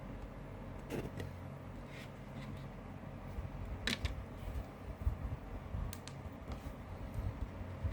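CD case and disc being handled: a few scattered sharp clicks and taps, the loudest about four seconds in, over a low steady rumble.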